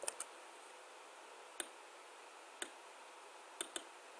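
Computer mouse clicks: about half a dozen short, sharp clicks spaced out over a few seconds, two of them in quick succession near the end, over faint steady room noise.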